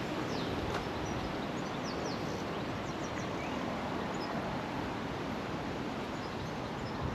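Steady rush of river water flowing over shallows, with a few faint bird chirps above it.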